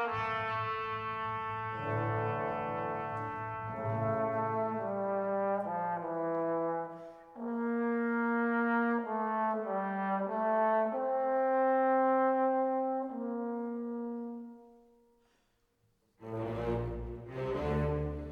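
Background music: a slow melody of long held notes that fades out about fifteen seconds in. After a moment of silence, another passage of music starts near the end.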